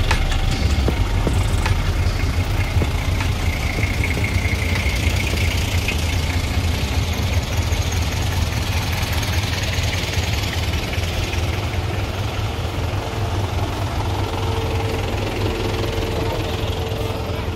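Engine of a modified off-road 4x4 running steadily, a continuous low rumble.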